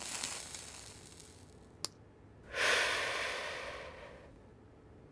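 A cigarette being lit with a lighter and smoked: a soft hiss that fades over the first couple of seconds, a single sharp click just before two seconds in, then a long breathy exhale of smoke lasting nearly two seconds.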